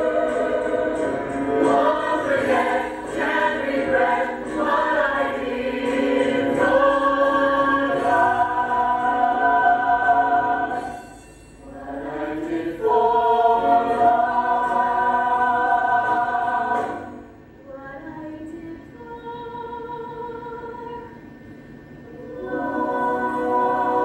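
Musical-theatre ensemble singing together in long held chords, with brief breaks about halfway through and again near the end, where the singing goes quieter before swelling back to full voice.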